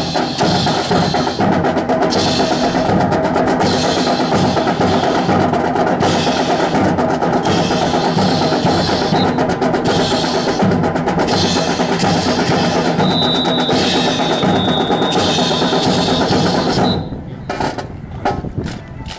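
Marching band drums, with bass drum and snare, playing a dense driving rhythm with rolls. A high held note sounds about two-thirds of the way through. The playing stops about 17 seconds in, leaving a few sharp clicks.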